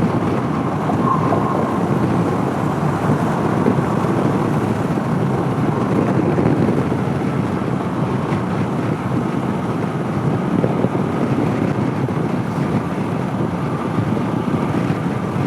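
Steady wind noise on the microphone mixed with the running of the Honda CB500X's parallel-twin engine as the motorcycle rides along at an even pace.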